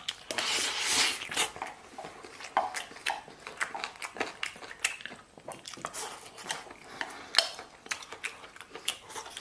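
Chopsticks scraping and tapping on an enamel plate as rice pilaf is shovelled into the mouth, then close-up chewing with scattered sharp clicks and smacks.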